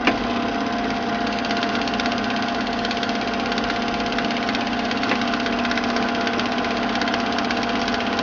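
Film projector sound effect: a steady mechanical whir with a rapid, even clatter.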